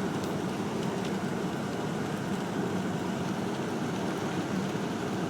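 Steady in-car road noise of a car driving on an icy road: engine and tyre noise from studded snow tyres on ice, with a few faint ticks.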